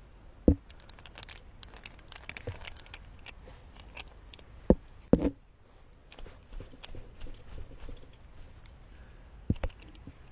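Metal climbing gear, the carabiners of a quickdraw on a bolt, clinking and jingling as it is handled. Several sharp knocks come through as well: one about half a second in, a pair around five seconds in and two near the end.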